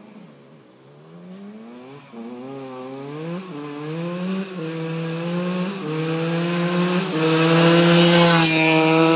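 Dirt bike accelerating hard through the gears, the engine's pitch climbing then dropping back at each of several quick upshifts, growing steadily louder as the bike approaches.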